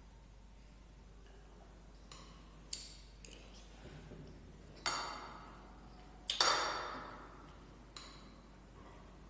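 Metal spoon clinking and scraping against a plate while eating: a handful of sharp clinks, the loudest two about five and six and a half seconds in, each with a short ringing tail.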